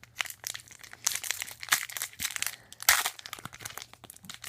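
Plastic foil wrapper of a 2014 Rookies and Stars football card pack crinkling and tearing as it is opened by hand, a quick run of sharp crackles.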